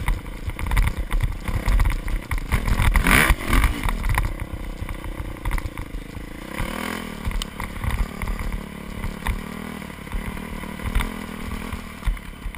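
2001 Yamaha YZ426F four-stroke single-cylinder dirt bike engine revving up and down while riding, heard from a helmet-mounted camera. It is loudest in the first few seconds, with a sharp rev about three seconds in and another rise near seven seconds, then runs steadier and quieter.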